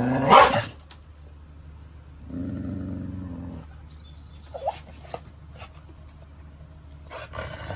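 A dog vocalizing: a short, loud cry at the very start, then a low, drawn-out grumble lasting about a second from about two seconds in.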